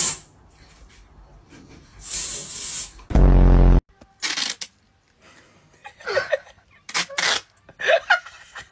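A fake sneeze sound effect: a sharp hissing burst, then a loud held tone that cuts off suddenly. Short laughs and vocal bursts follow.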